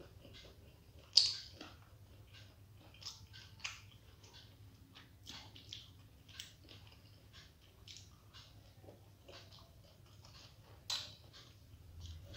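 A person chewing soft steamed vegetable momos: a string of short mouth clicks and smacks, with two louder, sharper ones about a second in and near the end.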